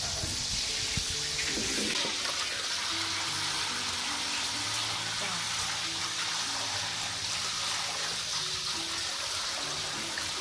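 Wet rice and its water poured from a plastic basin into a metal bowl over a water basin, with a steady splashing, trickling rush as the water drains off the rice.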